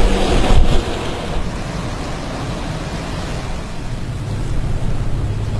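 Storm wind blowing hard across the microphone, a dense rushing noise that drops somewhat in level about a second in and then stays steady.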